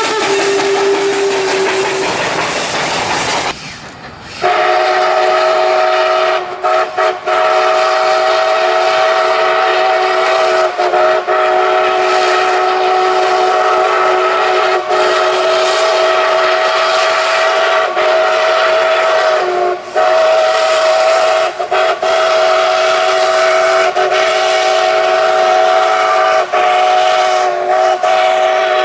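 Train sound effect: a hiss for the first few seconds, then after a short break a train whistle sounds a steady chord of several notes. The whistle is held for the rest of the time, broken only by brief dropouts.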